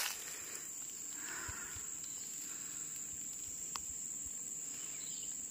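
Steady high-pitched insect drone, with a single faint click about two-thirds of the way in.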